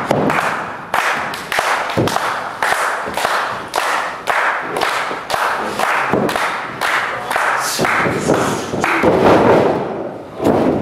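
Small ringside crowd clapping in unison in a steady rhythm, about two claps a second, the usual rally while both wrestlers are down. The crowd grows louder for a moment near the end.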